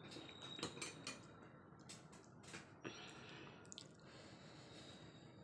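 Faint, scattered clicks and soft wet handling sounds: fingers picking up boiled sweet potato leaves from a plate.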